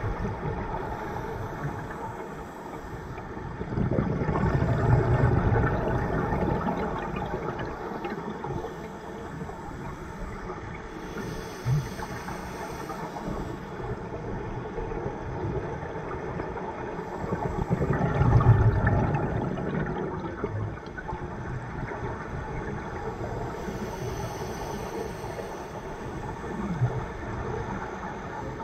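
Scuba diver breathing through a regulator underwater: two loud rushes of exhaled bubbles, about four and eighteen seconds in, with fainter hissing inhalations between them.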